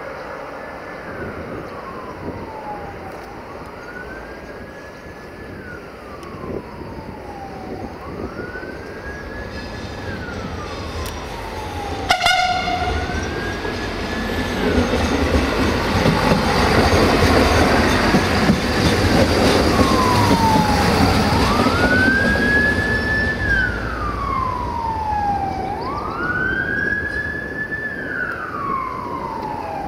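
Emergency vehicle siren wailing, each cycle rising, holding and falling over about three to four seconds. Under it a train passes, its rumble swelling to a peak in the middle and easing off, with a sharp knock about twelve seconds in.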